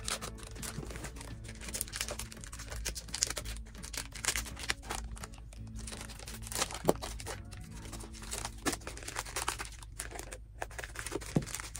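Plastic packet of a disposable hand warmer being crinkled and torn open by hand: a run of irregular rustles and crackles.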